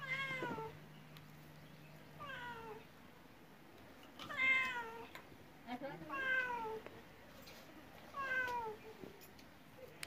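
Domestic cat meowing, five separate meows about two seconds apart, each falling in pitch.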